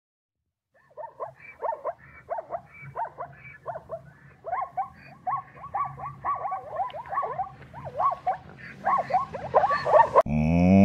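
Zebra calling in a rapid series of short, yelping barks, each rising and falling in pitch, about three a second. Near the end a cow's loud, low moo cuts in suddenly.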